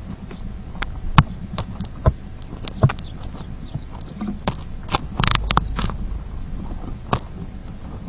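Eurasian tree sparrows pecking and scrabbling at seed on a plastic feeder tray: irregular sharp taps and scratches, with a longer rustling burst about five seconds in, over a low steady rumble.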